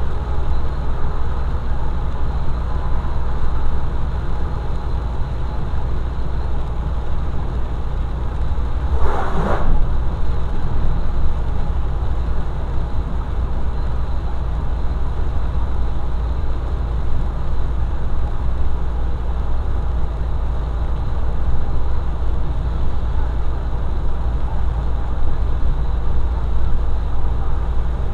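Steady drone of a vehicle driving on a wet highway in rain, heard from inside the cab: engine and tyre noise on the wet road. A brief louder sound stands out about nine seconds in.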